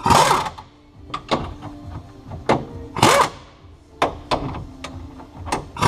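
Metal clunks and knocks from a Jeep Cherokee XJ tilt steering column being pushed and worked into its mounts under a Jeep Wrangler YJ dash. The knocks are irregular and scattered; the loudest come at the start and about three seconds in.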